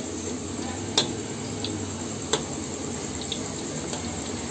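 Chicken momos frying in hot oil in an iron wok, a steady sizzle, with a metal spatula clinking against the pan twice, about a second in and again a little past two seconds.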